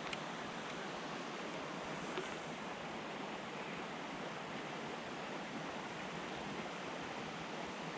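Steady, even rushing of flowing water, unbroken throughout.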